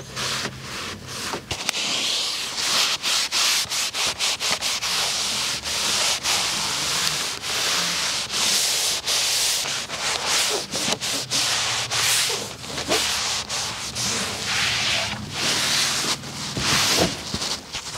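A car surface being scrubbed by hand: a fast, irregular run of rubbing strokes, several a second.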